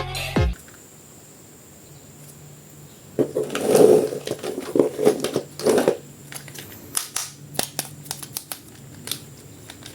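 Hands handling an action figure and its plastic packaging: a few seconds of rustling and scraping, then scattered light clicks.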